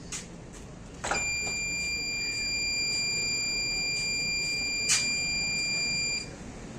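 A click, then the buzzer of a homemade 555-timer vibration alarm sounds one steady high-pitched tone for about five seconds before cutting off: the alarm tripped by a slight disturbance and held on by the timer. Another sharp click comes about four seconds in.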